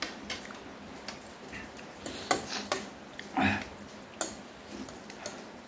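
Metal fork clicking and scraping against a ceramic plate while twirling and lifting noodles, a few sharp ticks spread out, with one louder, fuller brief sound about three and a half seconds in.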